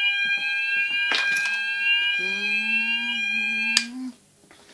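Fire alarm sounding on test, set off by deodorant sprayed at the smoke detector: steady high tones with a rising sweep repeating about twice a second over a lower tone, and a short loud hiss about a second in. The alarm cuts off suddenly with a click a little before the end.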